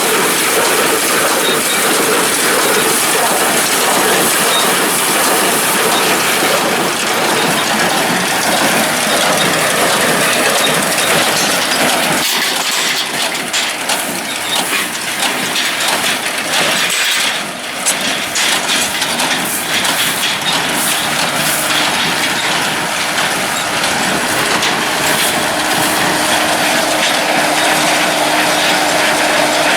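Tractor-drawn hay baler at work: a loud, steady mechanical clatter.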